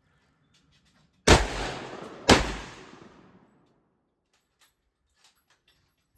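Two AR-15 rifle shots about a second apart, each followed by a long echo that dies away.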